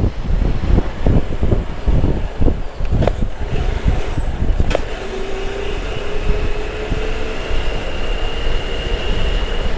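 Road traffic noise with wind buffeting a clip-on microphone, a gusty rumble. From about halfway a steady vehicle engine tone rises slightly in pitch, and a few short knocks come near the middle.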